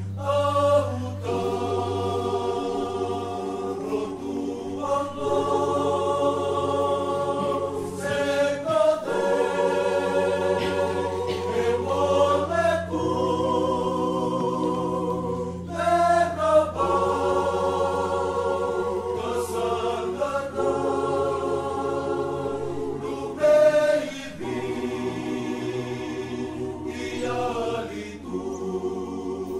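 Unaccompanied choir singing a hymn in long held chords, over a steady low hum.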